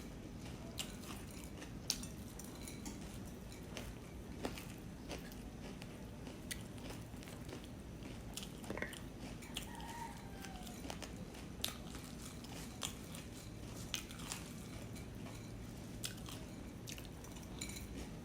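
A person chewing a mouthful of puffed rice and jackfruit, with short crisp crunches every half second to a second.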